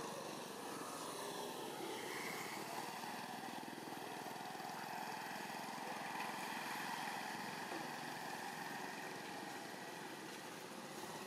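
Steady hum of a motor vehicle engine running nearby.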